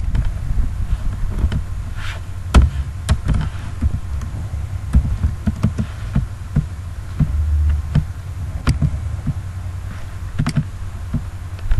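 Scattered sharp clicks and taps of computer keys and a mouse button over a steady low rumble and hum.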